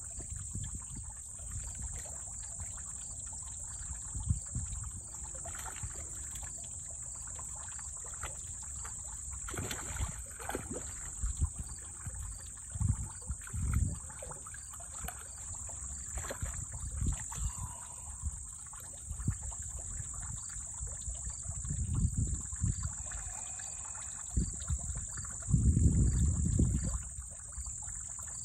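Water splashing and sloshing in irregular bursts as two common snapping turtles thrash and wrestle in a shallow muddy puddle, loudest a few seconds before the end. A steady high-pitched insect drone runs underneath.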